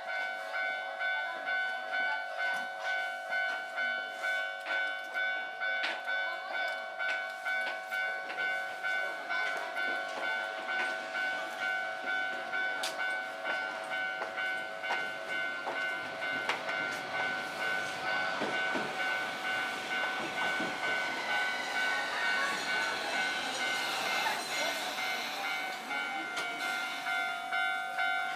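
Japanese level-crossing warning bell ringing steadily, two tones pulsing about twice a second. A Tokyu Setagaya Line 300-series tram approaches under it; its running noise builds after the midpoint, with falling whines from the tram about three-quarters of the way through.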